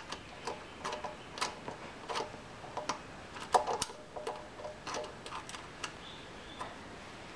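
Irregular clicks, about one or two a second, from a narrow flat-bladed screwdriver working inside the stem of a Honda GX270 carburetor, coaxing out a loosened brass main jet that won't drop free.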